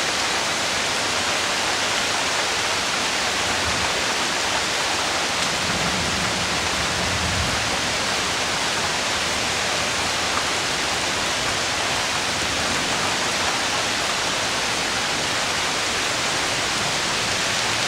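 Heavy rain pouring down steadily as a dense, even hiss, with a faint low rumble swelling briefly about six seconds in.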